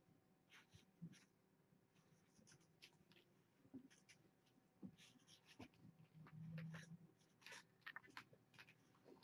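Faint, scattered scratches and small clicks of kittens moving about, with a brief low hum about six seconds in.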